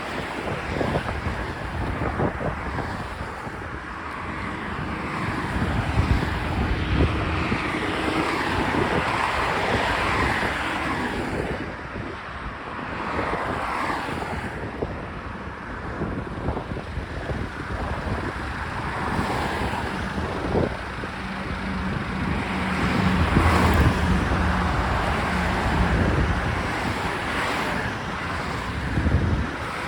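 Wind gusting over the microphone along with road traffic noise: a rushing, uneven rumble.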